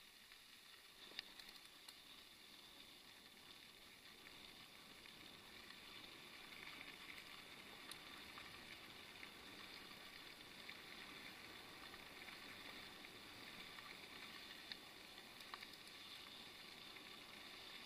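Faint steady hiss of a bicycle rolling along a gravel path, with a few small ticks and rattles from the bike.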